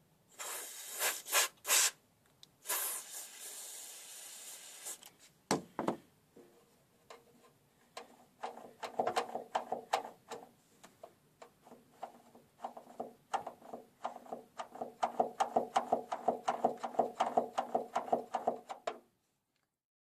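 Aerosol spray lubricant hissing through a straw into a door lock mechanism: two or three short squirts, then a longer spray of about two seconds. A single knock follows. After that comes a long run of rapid metallic clicking and rattling, about four clicks a second, which stops abruptly near the end.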